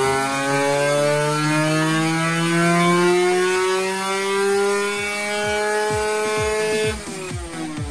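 Kawasaki Ninja 150RR's tuned single-cylinder two-stroke engine on a dyno pull at full throttle, its revs climbing slowly near the top of the range. About seven seconds in the throttle shuts and the revs fall away.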